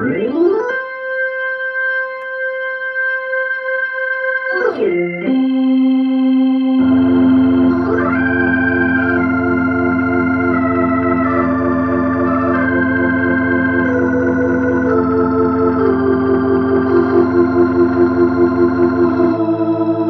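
1959 Hammond B3 tonewheel organ played through a Leslie 122 speaker cabinet. It slides up into a held chord, glides down about four seconds in, then bass notes join under changing sustained chords, with a fast pulsing in level near the end.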